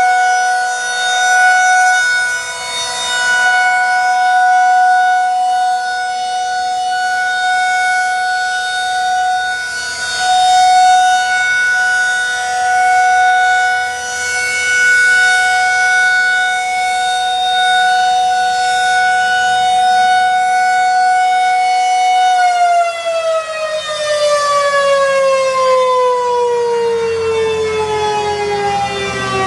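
Federal Signal 2001-SRN rotating outdoor warning siren sounding its steady Full Alert tone, the loudness swelling and fading every few seconds as the head turns toward and away. About three quarters of the way through, the tone stops being held and the siren winds down, its pitch falling steadily.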